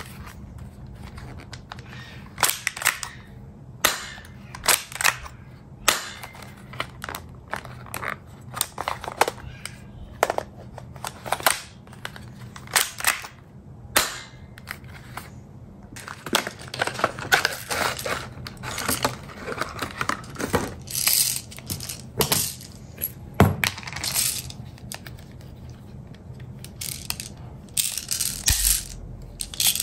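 Tokyo Marui AutoMag III airsoft pistol being handled and worked: an irregular run of sharp clicks, clacks and short sliding scrapes as the slide and parts are moved, with one heavier knock a little past two-thirds of the way through, and the magazine clicking under the fingers near the end.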